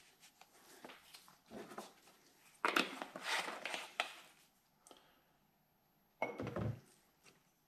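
Handling noise from a lab chemical bottle and bench items just out of view: a scraping, rustling stretch of about a second and a half a little before halfway, then a short dull thunk near the end.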